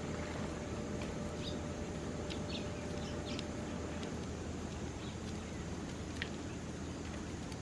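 Birds giving a few short, scattered high chirps over a steady low background rumble.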